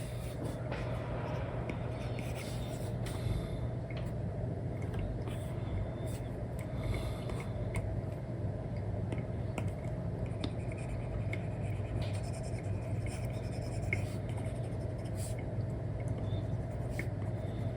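Stylus nib scratching and tapping in short strokes on an iPad screen covered with a paper-like film, over a steady low background hum.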